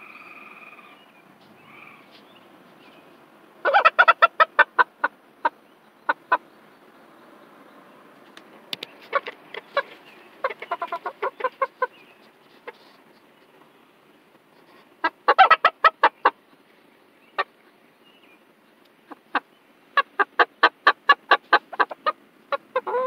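Young chickens clucking and chattering in quick runs of short clucks, several bursts with pauses between, and a longer drawn-out call near the end.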